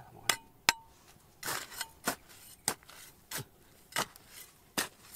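Metal digging tool striking hard rock, about nine sharp hits, one every half second or so. The first two ring briefly with a metallic clink.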